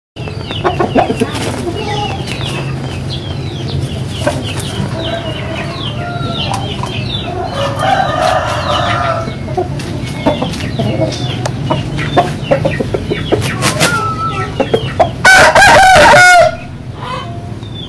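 Caged gamecocks: clucking and short chirps throughout, a fainter crow about eight seconds in, then a loud rooster crow lasting about a second near the end.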